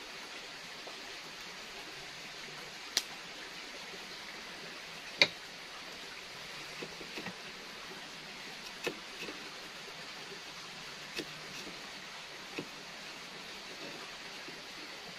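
A kitchen knife cutting raw potato into long strips on a wooden board, giving about eight sharp irregular taps as the blade strikes the board, the loudest about five seconds in, over a steady background rush.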